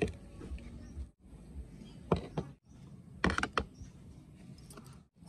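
A few short knocks and clinks of dishes being set down on a wooden table, in separate quick clusters.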